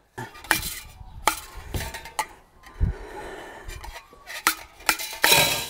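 Stainless-steel spark arrester being worked out of a stove chimney section: metal scraping and rubbing, broken by several sharp knocks, with a louder scrape near the end. The arrester is a very tight fit in the pipe.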